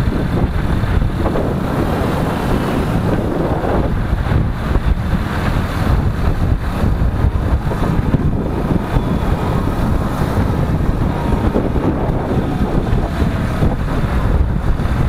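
Wind rumbling and buffeting on the microphone of a moving vehicle, over steady road and engine noise.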